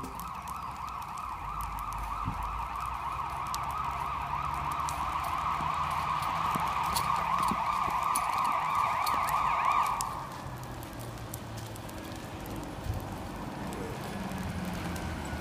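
Emergency vehicle siren in a fast, rapidly warbling yelp, growing louder as it approaches, then cutting off about ten seconds in.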